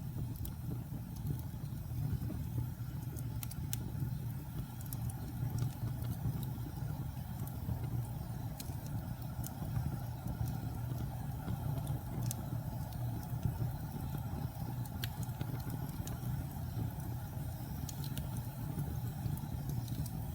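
Wood fire burning in a fireplace: a steady low rumble of flames with scattered sharp crackles and pops every second or few.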